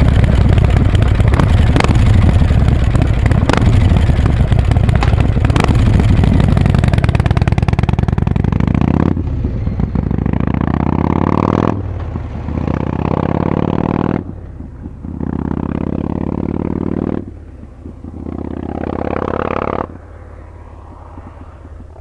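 Harley-Davidson Breakout's V-twin running loud and close, then pulling away: the revs climb in each gear with about five upshifts, every gear fainter as the bike moves off into the distance.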